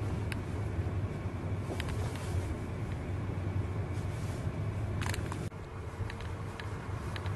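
Car driving along a snow-covered road, heard from inside the cabin: a steady low engine and tyre rumble, with scattered light ticks and a brief clatter about five seconds in.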